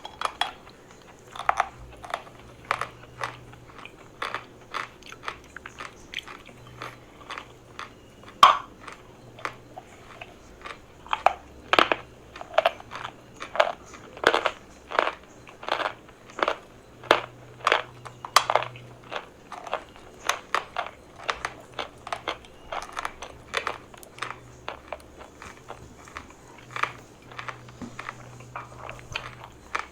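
Close-up crunching of eating chalk: repeated sharp bites and chews of hard chalk, roughly one or two crunches a second, the loudest about eight seconds in.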